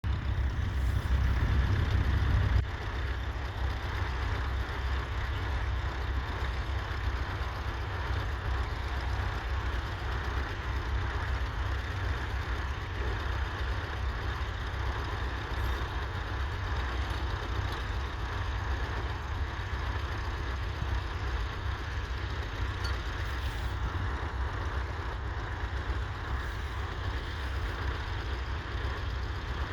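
Massey Ferguson 35 tractor's diesel engine running steadily with a deep, even note. It is louder for the first couple of seconds, then drops suddenly to a lower steady level.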